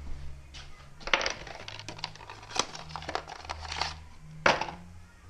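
Small hard objects being handled: a run of sharp clicks and crinkling rustles over about four seconds, with the loudest click near the end.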